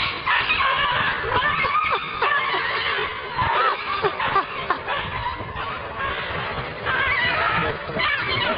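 A cat and a small dog fighting, with a dense run of short squeals and yowls rising and falling in pitch, one after another.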